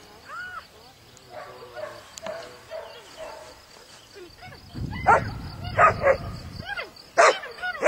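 Dog barking in short, high yips, faint at first, then several loud barks in the second half. A low rumbling noise runs under the middle barks.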